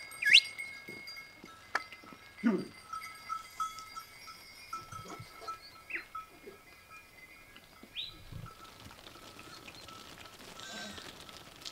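A flock of sheep on the move, small sheep bells tinkling on and off, with one sheep bleating about two and a half seconds in.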